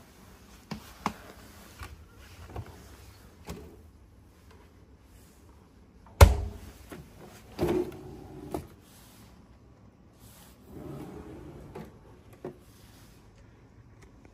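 The minibar fridge and drawer of a hotel bedside cabinet being handled. There are a few light clicks, then a sharp loud knock about six seconds in, and a softer knock with a short rattle about a second and a half later.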